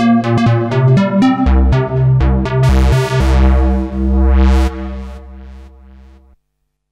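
Novation Peak hybrid synthesizer playing its 'Inspector Lead' factory patch: a fast run of sharp-attacked lead notes over a low bass line. The filter cutoff is swept open and closed by hand, brightening the sound and then dulling it. The sound then fades out, stopping about six seconds in.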